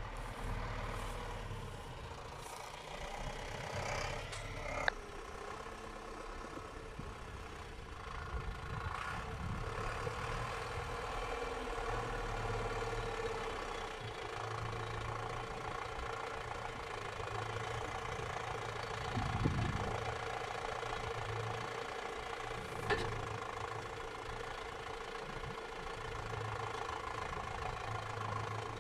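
Diesel tractor engine running steadily at idle, with a few sharp knocks about five, nineteen and twenty-three seconds in.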